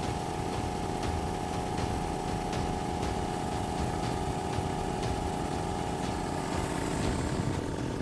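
Piston air compressor running steadily as it pumps up its tank, with a steady hum. The new cylinder head gasket has stopped the air leak, so it is filling the tank quickly.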